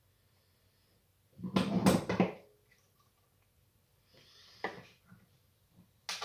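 A short, loud clatter of hand-handling noise about a second and a half in, from parts and tools being handled during the repair. A faint hiss and a single click follow a little after the four-second mark.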